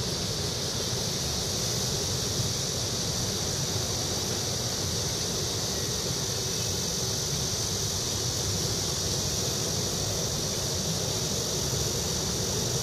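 Steady outdoor ambience: a low, even rumble of distant traffic with a constant high-pitched hiss above it.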